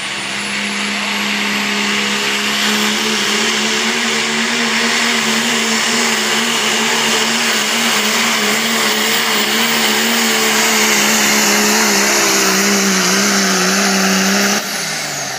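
Pulling truck's diesel engine held at full throttle, dragging a weight-transfer sled down the pull track. It runs loud and steady with a slightly wavering pitch, then drops off suddenly about a second before the end as the pull ends.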